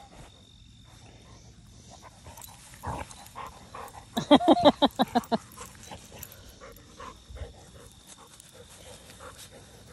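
A dog giving a quick run of about eight short, high-pitched play yaps and growls over a little more than a second, about four seconds in, while the dogs wrestle.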